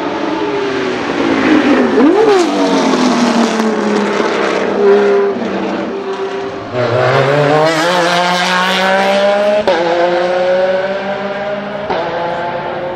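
Porsche race car engines at full speed on a circuit. The note falls in pitch as a car goes by, with a quick blip of revs about two seconds in. Later it climbs hard through the gears, with a sharp gearchange about ten seconds in.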